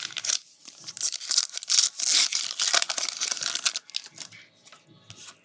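Foil wrapper of a Panini Donruss basketball card pack being torn open and crinkled: a few short crackles, then about three seconds of dense crinkling that dies down near the end.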